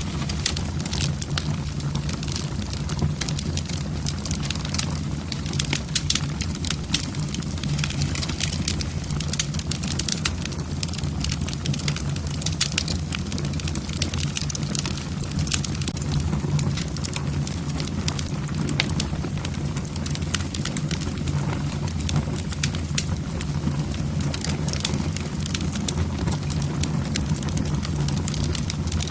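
Wood fire burning in a fireplace: logs crackling with frequent, irregular sharp pops over a steady low rush of flame.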